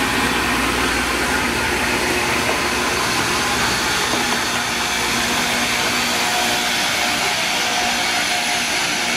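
Loram RG-401 rail grinder passing close by with its grinding stones working the rail: a loud, steady grinding hiss.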